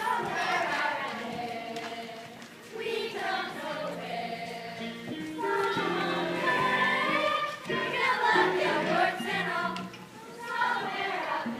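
A children's chorus singing a show tune with musical accompaniment.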